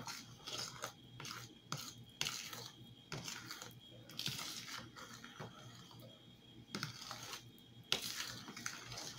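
A spoon stirring pancake batter in a plastic bowl: irregular scrapes and small taps against the bowl, with one sharper knock near the end. The batter is being mixed well to work out the lumps.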